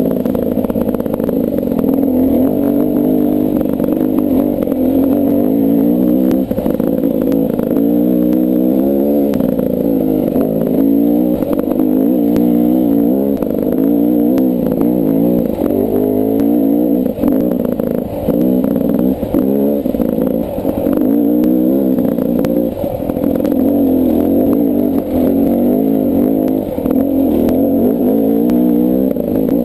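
Beta 300 RR two-stroke single-cylinder dirt bike engine riding a rough trail, its pitch rising and falling over and over as the throttle is worked. Scattered knocks and clatter from the bike running over bumps.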